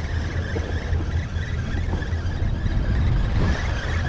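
A steady, fluctuating low rumble with a faint, steady high tone above it.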